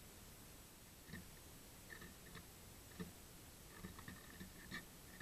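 Faint, scattered taps and ticks, about six in five seconds, of a Eurasian nuthatch pecking at suet crumbs on a wooden fence rail.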